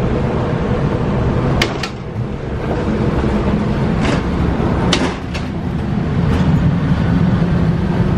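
Steady low rumble and hum inside an air-conditioned double-decker train coach, with several sharp clicks and knocks scattered through it.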